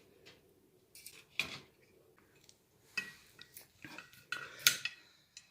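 Metal cooking utensils clinking and clattering against cookware, a string of irregular sharp clacks with the loudest a little before the end.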